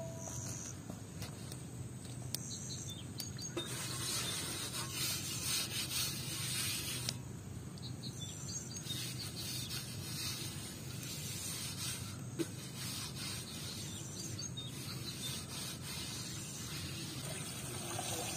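Water from a garden hose running into a metal cooking pot and being tipped out as the pot is rinsed, with rubbing against the metal. The water sound is brightest between about four and seven seconds in.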